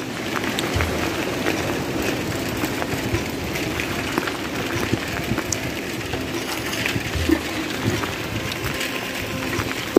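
Steady rushing of river water pouring through the fully opened sluice gates of a barrage, with light scattered clicks and rattles throughout.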